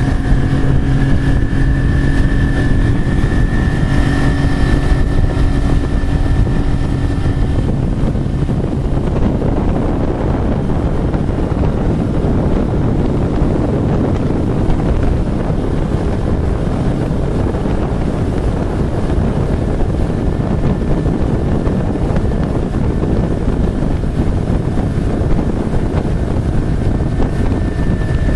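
Ski boat's motor running steadily under way, with a heavy rush of wind and water. The engine's steady note is clear for the first several seconds, is then buried under the rush for most of the time, and comes back near the end.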